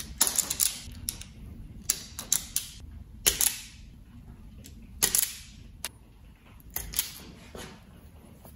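Automatic wire stripper clicking and snapping shut and open as it grips and strips insulation from electrical cable cores: sharp clicks in small irregular groups.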